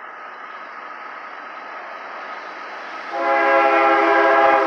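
Lead GE ES40DC diesel locomotive of an approaching CSX freight sounding its air horn: one long chord-like blast starting about three seconds in, the loudest sound, ending near the end. It is a crossing warning. Before it, the train's approach noise builds steadily.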